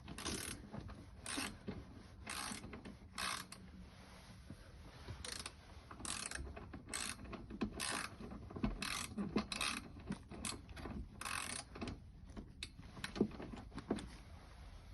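Hand ratchet wrench clicking in short bursts, about one a second with pauses, as its handle is swung back and forth to turn a tight screw.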